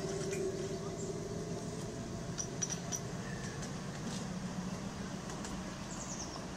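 Ride-on miniature railway train running along the track and moving away, with a steady low rumble and light clicks and clinks of the wheels on the rails.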